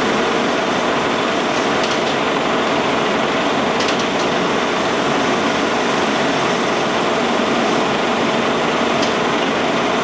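1952 Bullard Cutmaster vertical turret lathe running under its 30-horsepower main motor, its 36-inch faceplate table turning: a steady, even mechanical whir with a few faint ticks.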